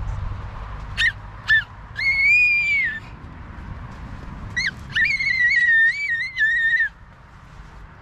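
A toddler's high-pitched squeals: two short squeaks, then a long squeal, two more short squeaks and a longer wavering squeal.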